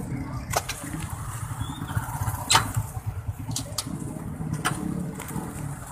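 Motorcycle and other vehicle engines running slowly in a traffic jam, a low pulsing rumble, with a few sharp clicks and knocks from the phone being handled.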